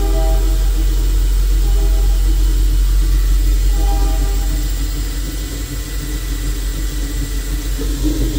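Haas VF0 vertical machining center spindle running steadily at around 2,000 RPM during a spindle speed check, a steady low hum with faint thin high tones. The low hum thins slightly about five seconds in.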